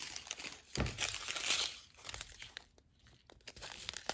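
Small plastic bags of diamond-painting drills crinkling as they are handled, loudest about a second in, then quieter with a few scattered ticks.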